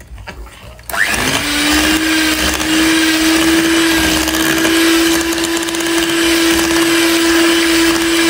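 Electric hand mixer switched on about a second in, its motor whine rising quickly, then running at a steady speed with its beaters whirring through cake batter.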